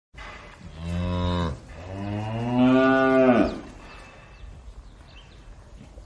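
Holstein dairy cow mooing twice in a barn: a short moo, then a longer, louder one whose pitch drops as it ends. Faint barn background after.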